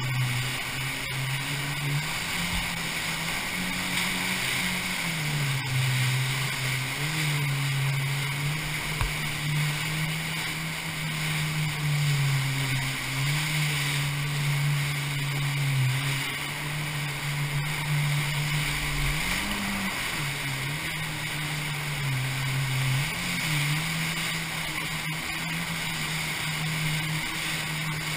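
Kawasaki rescue watercraft (jet ski) engine running under throttle through whitewater rapids. Its note steps up and down as the throttle changes, with a couple of quick revs about two-thirds of the way through, over a steady hiss of rushing water and spray.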